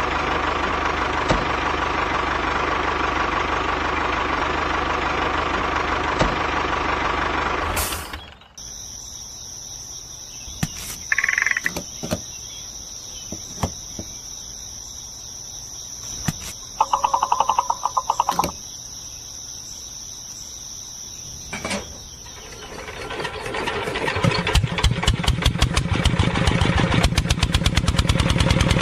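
Tractor engine idling steadily for about eight seconds, then cut off suddenly. A quieter stretch follows with a high steady whine, a few clicks and a short rattling buzz. About 23 seconds in, a single-cylinder stationary engine starts and runs with a rapid, even chugging rhythm.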